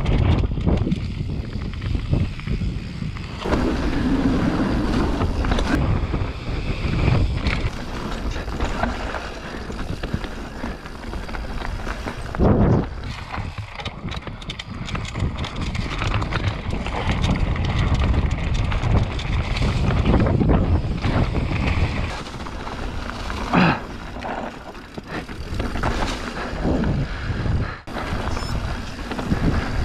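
Radon Jab enduro mountain bike descending a dirt trail at speed: wind rushing over the camera microphone with the rumble of tyres on dirt and leaves, and a few sharp knocks over bumps, two of them louder, about twelve and twenty-three seconds in.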